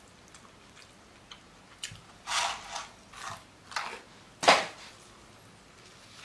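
McDonald's cardboard fries carton handled and set down: a few short rustling scrapes, the loudest about four and a half seconds in.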